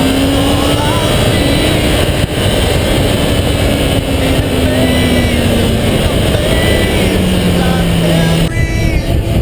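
Kawasaki ZX-10R's inline-four engine at high revs down a straight, under heavy wind rush on the mic. Its note rises over the first second and holds, then drops to a lower steady pitch about seven seconds in. The sound changes abruptly near the end.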